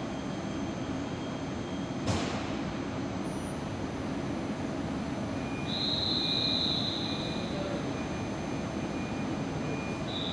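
Steady hum of a standing Siemens ES64U4 (class EU44) electric locomotive, with a sharp click about two seconds in. A high, steady tone sounds for about two seconds midway and again briefly near the end.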